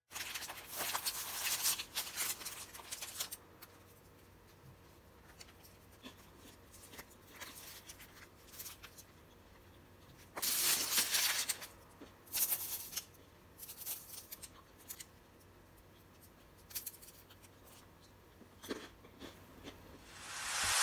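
Crisp crust of a freshly baked Persian barbari flatbread crackling under pressing fingers, then the loaf being torn apart by hand in several separate rips, the crust crunching as it breaks, from about halfway on.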